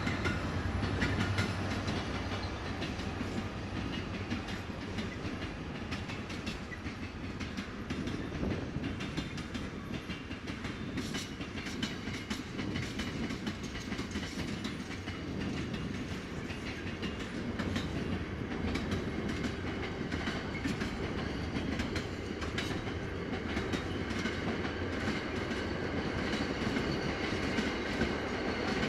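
A train running past on the main line: a steady rumble of wheels on rail, with clicks from the wheels over the track.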